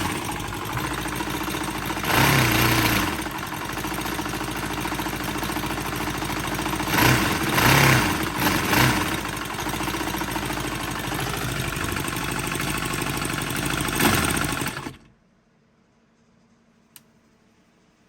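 Panther Pup 45 cc four-cylinder, four-stroke, air-cooled petrol model engine running, surging louder three times, then cutting off suddenly about three seconds before the end. It has rattles that the owner puts down to worn timing gears. After it stops there is near silence with one small click.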